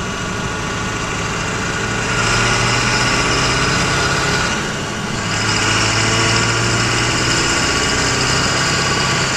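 Ford F-350's 7.3-litre Powerstroke V8 turbo-diesel running in gear under acceleration, heard from inside the cab; the engine gets louder about two seconds in, drops back briefly around the middle, then pulls again.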